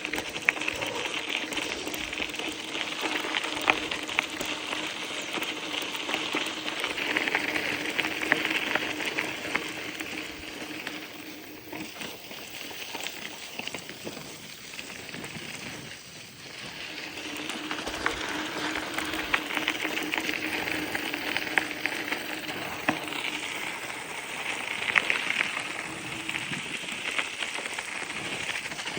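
Bicycle tyres rolling over a rough unpaved trail: a steady crunching crackle with scattered clicks of grit and small stones, and a steady low hum. It eases off for a few seconds in the middle, then picks up again.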